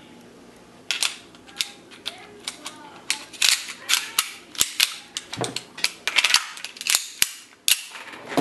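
A black pistol being handled and loaded: a quick irregular run of sharp clicks and clacks from its magazine and slide, starting about a second in.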